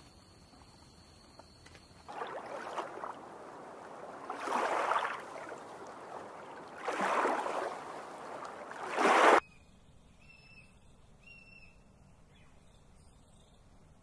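Water sloshing and washing in several swells, the loudest surge coming about nine seconds in and cutting off suddenly. After it come a few faint short bird chirps.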